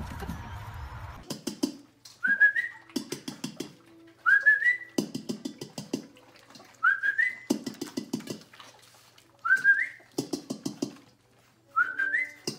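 A short rising whistle, repeated five times at even intervals of about two and a half seconds, each time with a quick run of taps and clicks. The pattern starts just after a brief rumble that cuts off about a second in.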